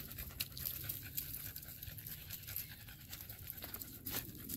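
A dog panting, with short irregular breaths.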